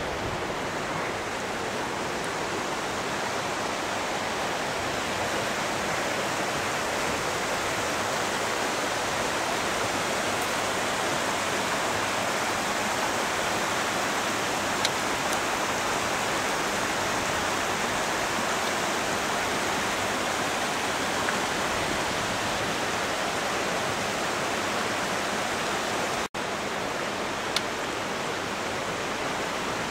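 Steady rush of floodwater in a normally dry rambla (gully) running as a river after torrential rain. The sound breaks off for an instant once near the end.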